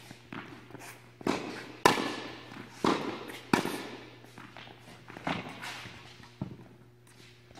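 Tennis rally on a hard indoor court: rackets striking the ball and the ball bouncing, sharp pops each followed by a long echo from the hall, about six over the first six and a half seconds, then only faint sounds.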